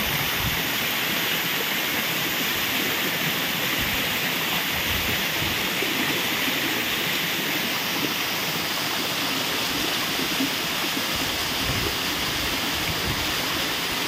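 Waterfall rushing steadily down a rock face, heard close up at its base.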